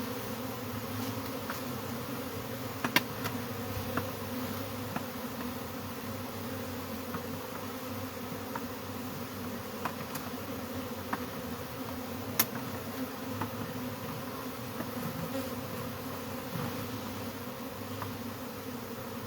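Mass of honeybees buzzing steadily around an opened colony, with a couple of faint sharp clicks about three and twelve seconds in.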